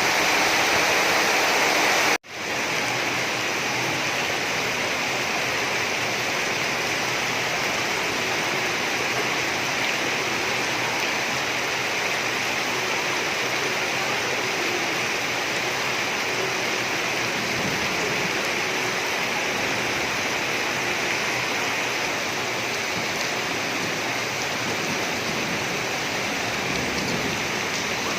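Heavy rain pouring down in a steady, even rushing hiss. The sound drops out for a split second about two seconds in, then carries on a little quieter.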